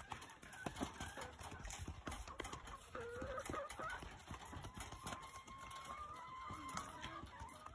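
Laying hens calling: a wavering call a few seconds in, then a long drawn-out call in the second half, over scattered light clicks and scrapes.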